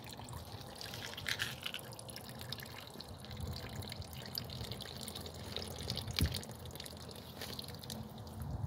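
Faint water dripping and trickling in a small pond tank, with a few soft knocks, the loudest about six seconds in.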